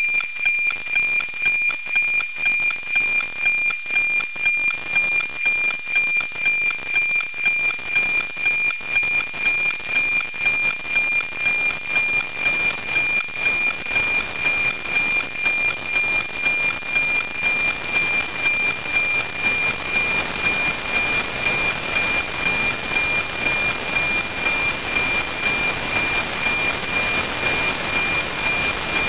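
NOAA-19 weather satellite APT downlink, demodulated by an RTL-SDR receiver and played as audio: a steady 2400 Hz tone with a tick-tock beat about twice a second, one beat per image line received. Static hiss grows over the last third as the signal weakens.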